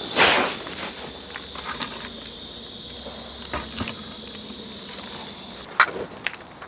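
Loud, steady, high-pitched drone of cicadas, cutting off suddenly near the end, with a few soft rustles underneath.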